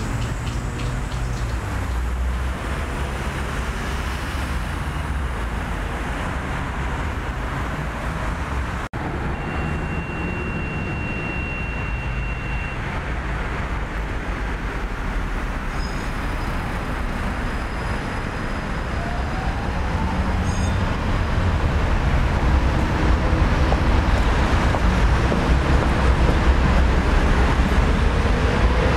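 Steady rumble and hiss of city traffic, with a split-second dropout about nine seconds in and a brief high steady tone soon after; it grows louder in the last third.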